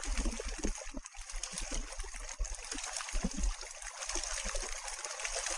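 Water splashing and trickling steadily as the makeshift flat paddles on the wheels of a pedal-powered amphibious recumbent churn through the lake, with irregular low thumps underneath.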